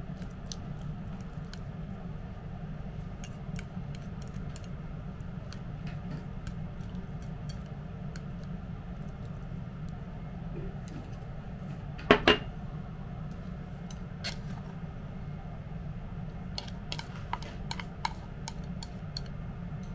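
Light clicks and clinks of a ceramic dish and utensils against a ceramic bowl, with two sharp knocks just past the middle and a run of small clicks near the end. A steady low hum runs underneath.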